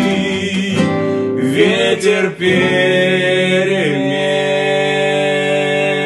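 A man singing a slow song to acoustic guitars, holding one long note on the word "ветер" from about two seconds in, with the pitch sliding down a little after four seconds.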